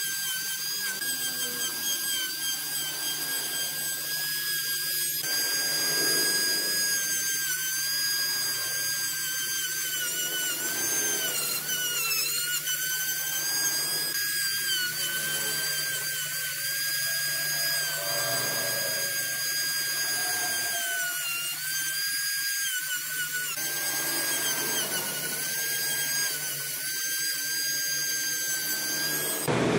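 High-speed electric rotary carving tool running and cutting into wood, a steady high whine whose pitch sags briefly several times as it takes load.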